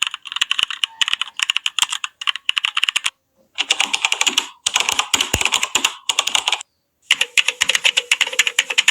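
Computer keyboard typing sound effects: rapid runs of key clicks, heard as three separate clips with short breaks about three seconds and six and a half seconds in.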